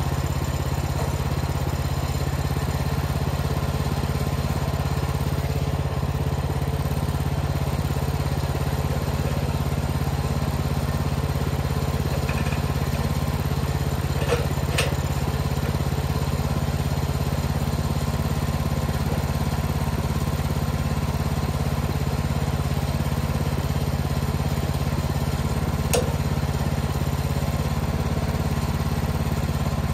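Woodland Mills HM-126 portable sawmill's gas engine idling steadily while the head stands still, not cutting, with a few light clicks about halfway through and near the end.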